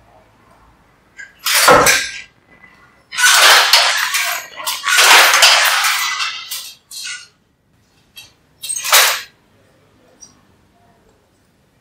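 Karappan handloom being worked by hand: a sharp wooden knock about two seconds in, then two long noisy passes of about a second and a half each, and a shorter one near nine seconds, as the sley and shuttle-striking mechanism move.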